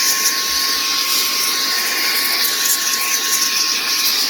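A SilverHolder 3-in-1 cordless car vacuum runs in duster mode, its small motor blowing a steady rush of air with a steady thin whine.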